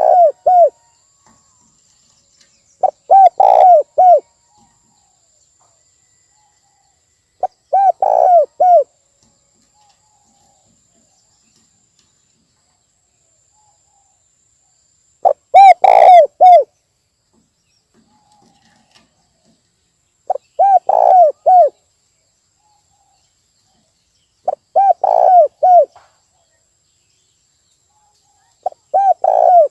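Spotted dove (tekukur) cooing: a short phrase of several quick coos, repeated about every four to five seconds with silence between.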